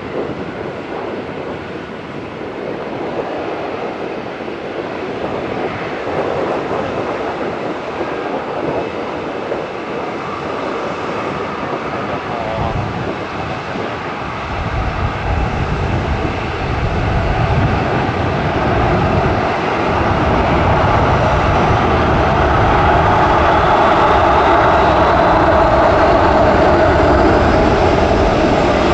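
Boeing 737-800's CFM56-7B jet engines running as the airliner lines up on the runway. A deeper rumble comes in about halfway, and the sound grows louder. Near the end a rising whine is heard as the engines spool up for takeoff.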